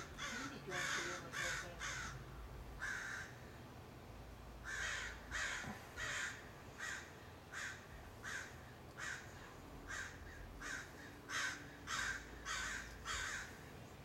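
A group of American crows cawing over and over, harsh caws in quick runs of several at a time, with a short pause about three to four seconds in.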